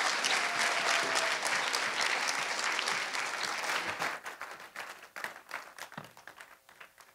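Audience applauding in a theatre. The clapping is dense at first, then thins out over the last few seconds into scattered single claps and stops. There is a single low knock near the end.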